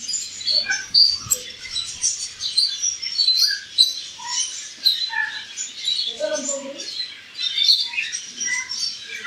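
Many small caged birds chirping at once: a dense, overlapping chatter of short, high chirps.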